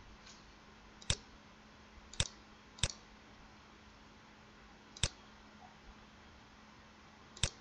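Five sharp, irregularly spaced clicks of a computer mouse, the first about a second in and the last near the end, over faint room hiss.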